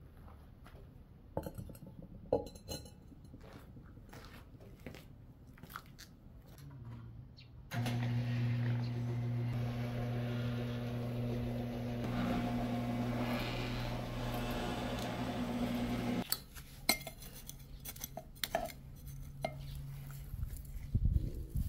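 Scattered clinks and taps of terracotta flower pots and a garden trowel being handled. In the middle, a steady low hum sets in suddenly, becomes the loudest sound, and cuts off just as suddenly.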